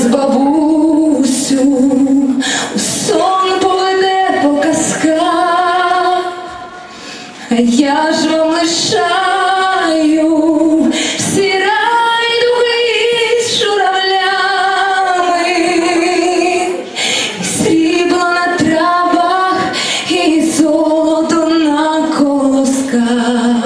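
A group of girls singing a Ukrainian song, mostly long held notes with vibrato. The singing drops away briefly about six seconds in, then comes back.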